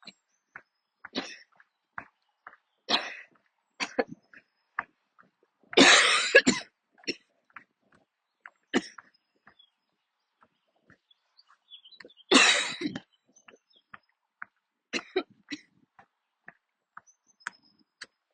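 A woman coughing during a coughing fit: scattered short coughs, with two loud, longer coughs about six and twelve seconds in.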